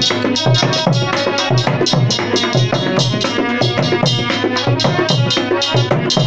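Instrumental passage of a Hindi devotional bhajan: hand-drum strokes in a quick, steady beat under a sustained melody line.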